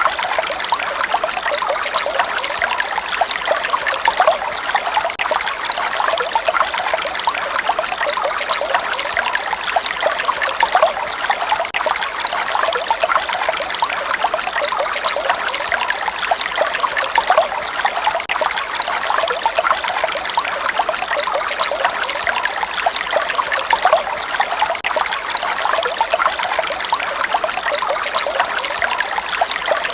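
Flowing water trickling steadily, a dense, even patter of small splashes with no pauses.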